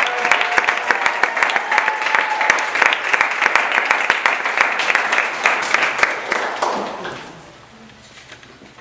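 Audience applauding, dense and steady, then dying away about seven seconds in.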